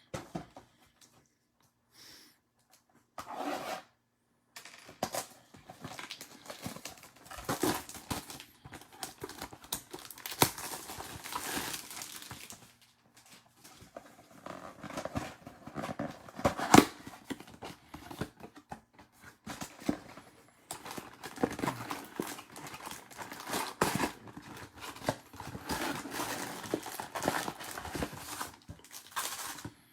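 Trading-card packaging being handled: irregular crinkling and tearing of foil pack wrappers and cardboard, with scattered taps and clicks. One sharp tap about 17 seconds in stands out as the loudest sound.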